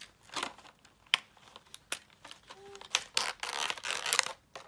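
Clear plastic blister packaging crinkling and clicking as a small toy car is worked out of it by hand. Scattered sharp clicks come first, then denser crinkling about three seconds in.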